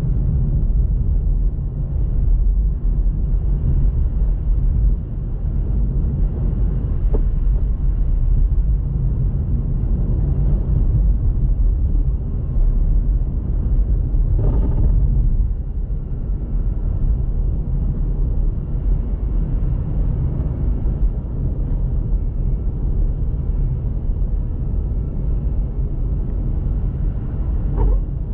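Car driving on snowy roads: a steady low rumble of road and engine noise, with a brief louder rush of noise about halfway through.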